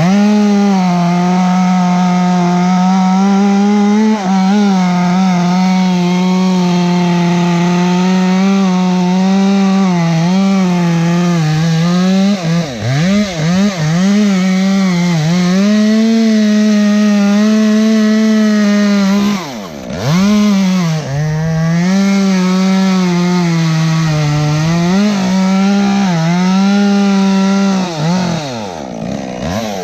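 Two-stroke chainsaw held at full throttle, cutting through thick maple wood. Its engine pitch sags and recovers as the chain bogs in the cut, and the revs drop briefly several times: around a third of the way in, about two-thirds in, and near the end.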